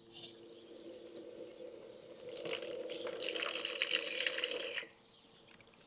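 Water running from an outdoor brass garden tap and splashing into a plastic tub. A brief hiss comes just after the start, the flow gets louder about two seconds in, and it cuts off suddenly near the end as the tap is shut.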